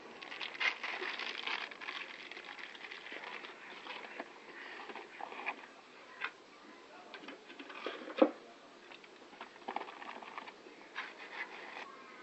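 Rustling and crinkling of a plastic pouch and scratching of potting soil as hands handle a plant, in scattered small noises, with one sharper knock about eight seconds in.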